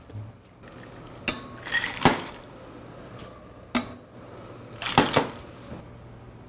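Kitchen cookware clatter: about five sharp knocks and clinks with a short ring, the loudest about two seconds in, as blanched chard is handled between a pot and a glass bowl of ice water. A low steady hum runs underneath.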